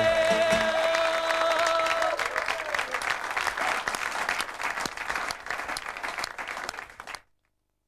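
The last held note of a song dies away about two seconds in under audience applause; the clapping carries on and then cuts off suddenly near the end.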